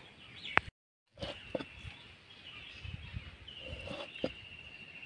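An iron cleaver chopping raw chicken on a wooden board: a few sharp knocks of the blade striking the board, the loudest under a second in. Right after it the audio drops out to silence for a moment. A thin, steady high-pitched drone carries on behind.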